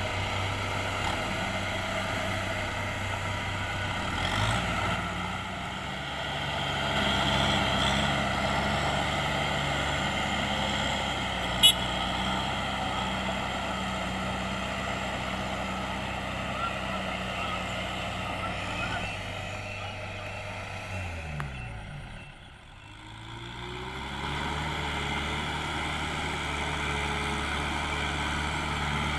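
Diesel engine of farm machinery running steadily. A little over two-thirds of the way in, its pitch drops sharply and the sound dips almost away, then the engine climbs back up and runs steady again. There is one sharp click about a third of the way in.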